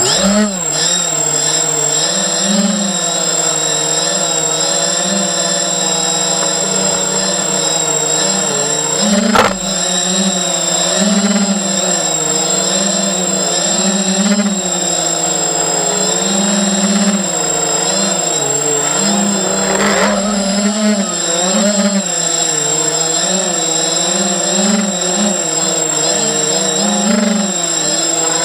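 ZMR 250 racing quadcopter's brushless motors and propellers whining in flight, heard close from its onboard camera, the pitch rising and falling as the throttle changes. A sharp click about nine seconds in.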